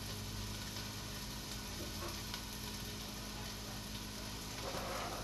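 Leeks and garlic sizzling steadily in a pot on the stovetop, an even frying hiss.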